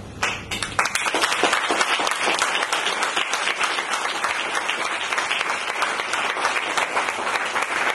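Audience applauding, starting about half a second in and going on at a steady level.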